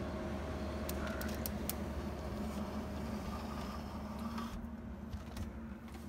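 A steady low mechanical hum, with a few light clicks between about one and two seconds in; the hiss above the hum drops away near the end.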